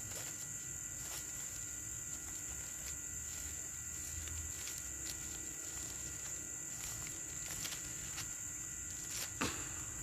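Steady high-pitched drone of insects, crickets by the sound of it, with a few faint clicks and one brief louder click near the end.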